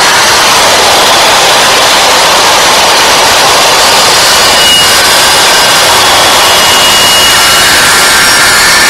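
Corded circular saw running steadily at full speed and very loud, cutting a series of shallow kerfs, about half an inch deep, across a 2x4 to form a notch.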